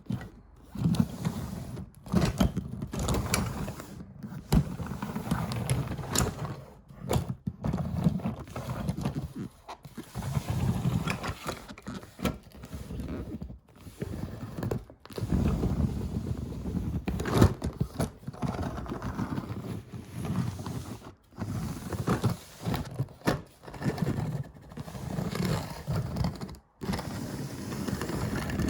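Diecast toy cars rolling, with a low rumble and clattering clicks and knocks, in repeated runs broken by short silent gaps.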